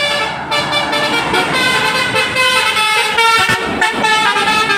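Tour bus's 'basuri' telolet musical horn playing a tune: a run of held notes, several tones sounding together, stepping to a new pitch every half second or so, over the noise of the passing bus.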